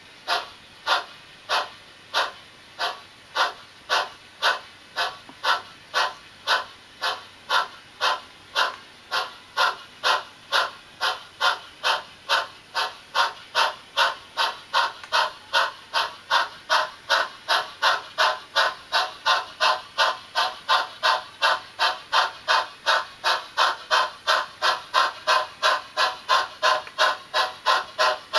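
Sound decoder in a model C36 4-6-0 steam locomotive, played through the tender speaker, giving a steady train of steam exhaust chuffs that quicken from under two to about three a second as the engine gathers speed.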